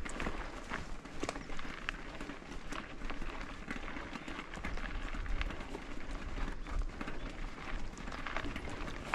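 Mountain bike rolling over a dirt trail: tyres crunching on gravel and rock, with irregular clicks and rattles from the bike, over a low rumble.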